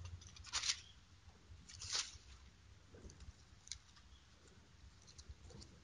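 Faint rustling of Bible pages being turned: two brief rustles, about half a second and two seconds in, then a few light ticks.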